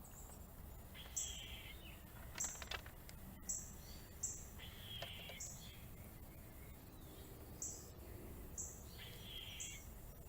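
Small songbirds calling: many short, high chirps, with a longer, harsher, lower call about every four seconds. A steady low rumble lies underneath, with a couple of brief clicks.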